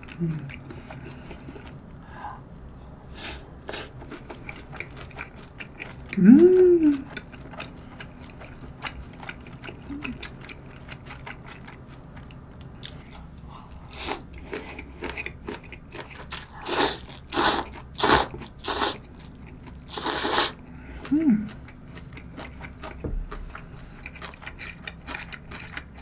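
A person eating cold jjamppong noodles: quiet chewing, a short closed-mouth "mm" hum about a quarter of the way in, and past the middle a run of about six sharp slurps as noodles are sucked up from the bowl.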